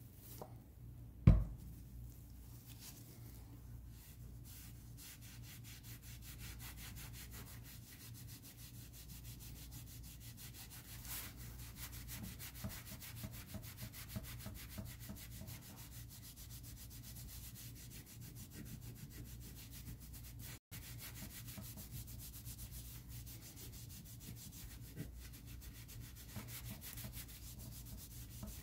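Steady soft rubbing of a pad over the copper face of a MacGregor Colokrom pitching wedge, brush-electroplating copper onto it. There is one sharp knock about a second in.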